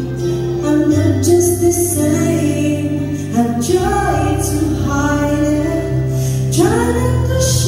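A song with a woman singing over held bass notes.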